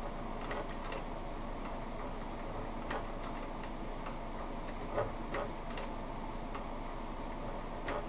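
Industrial sewing machine stitching thick leather slowly, a stitch at a time: about six sparse, irregular clicks of the needle and feed over a steady hum, the loudest about five seconds in.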